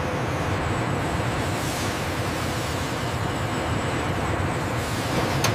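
Steady mechanical rumble and hiss of factory machinery, even in level throughout, with one sharp click near the end.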